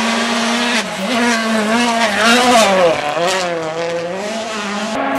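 Rally car passing at speed on a gravel special stage. The engine note rises and falls sharply with throttle and gear changes and is loudest about halfway through, then breaks off abruptly near the end.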